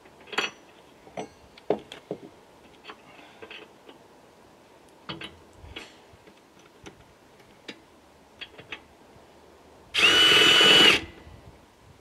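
A power drill runs for about a second with a steady, high whine near the end, driving a bolt in. Before it come scattered light clicks and knocks of metal parts being handled.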